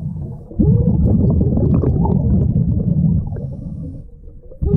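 A scuba diver's exhaled breath bubbling out of the regulator underwater, heard as a loud low rumble. One exhalation starts about half a second in and dies away after about three seconds, and the next begins suddenly near the end.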